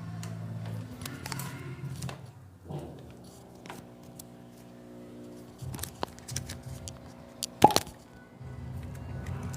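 Background music with sustained tones, over a scatter of sharp clicks and knocks from handling the washing machine, the loudest a single sharp click a little before the end.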